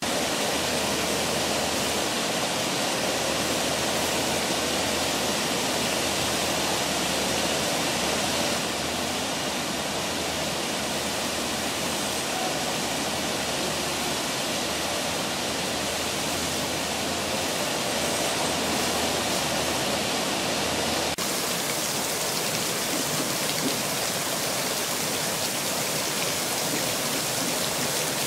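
Water pouring in a curtain over the rim of the Oval Fountain's raised stone basin into the pool below: a steady, loud rush. About three quarters of the way through it cuts abruptly to a slightly different steady rush of water from smaller garden fountain jets.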